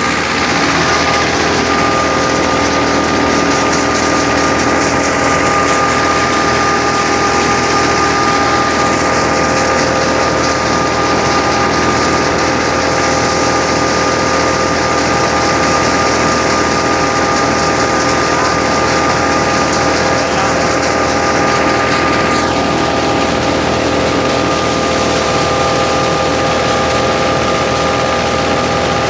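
A tractor-driven wheat thresher running steadily off a Fiat 640 tractor's PTO shaft, together with the tractor engine. Its steady whine sits over a constant dense clatter, with no change in speed.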